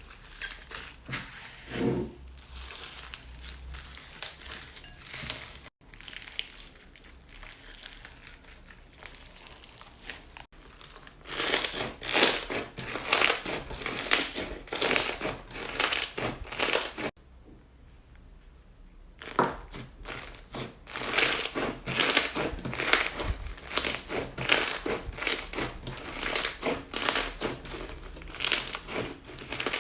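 Crunchy slime being squeezed and worked by hand, giving rapid crackling and crunching. Softer for the first ten seconds or so, then louder and denser, with a brief pause a little past halfway.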